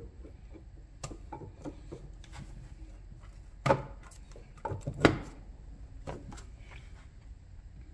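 Tools and motor parts being handled on a workbench: scattered light clicks and knocks, with two louder sharp knocks about three and a half and five seconds in.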